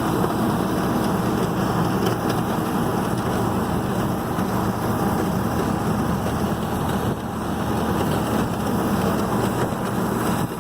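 John Deere 4440's six-cylinder diesel tractor engine running steadily under load while pulling a working round baler, with the rushing clatter of the baler taking in hay.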